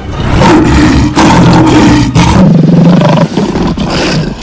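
Lion roaring, four loud growling roars in a row, each about a second long.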